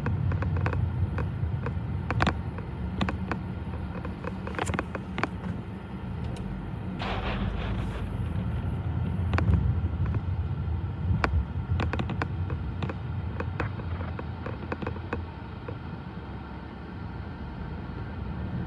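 Steady low rumble heard from inside a car stopped at a railroad crossing, with scattered clicks and knocks throughout. In the first seconds it is joined by the short local freight train clearing the crossing.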